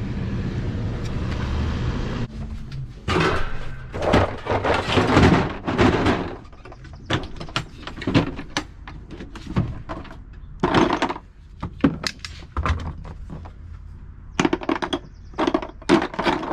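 Handling noises: a steady rushing noise for about two seconds, then irregular knocks, clatter and scrapes.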